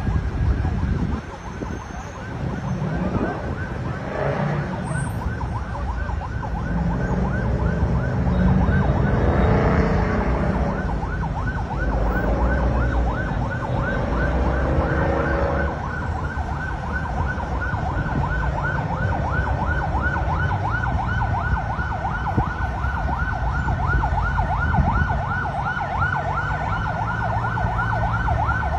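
An emergency vehicle siren sounding in a fast, evenly repeating warble, clearer from about ten seconds in, over a steady low rumble.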